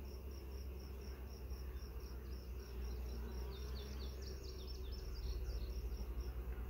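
Honey bees buzzing around an open hive box with a frame of bees lifted out, over a steady high insect chirp repeating about four times a second.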